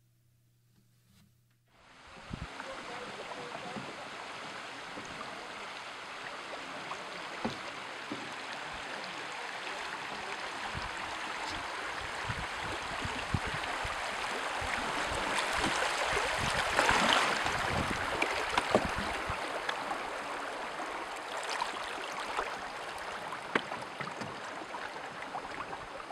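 River water rippling and lapping against the hull of a canoe, with many small splashes and knocks. It starts suddenly about two seconds in and is loudest around the middle.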